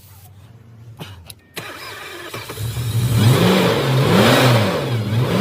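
BMW V12 engine starting about a second and a half in, then revved in several blips, its pitch rising and falling, after a new fuel pump and fresh petrol.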